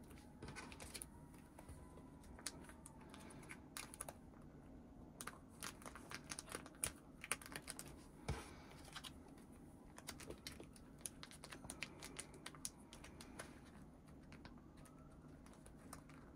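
Faint crinkling and light clicking of thin plastic photocard sleeves and binder page pockets as cards are handled and pushed into tight-fitting sleeves, irregular and scattered throughout.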